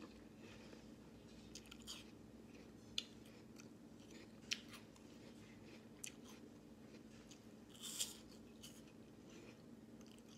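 Faint chewing of a crisp apple slice: a few scattered, sharp crunchy clicks, one longer crackle about eight seconds in, over a steady low hum.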